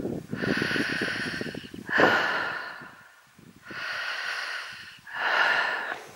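A person breathing hard close to the microphone, with four loud breaths about a second and a half apart.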